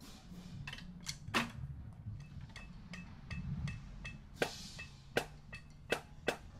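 Pause between marching drumline warm-up exercises: faint, irregular sharp clicks and light taps of drumsticks over a low steady hum.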